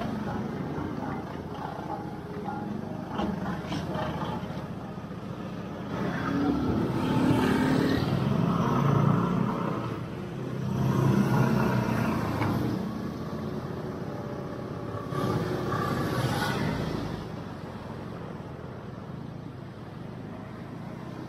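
Road traffic heard from a moving motorcycle: engine and road noise run throughout and swell twice through the middle, as vehicles pass close by or the bike speeds up.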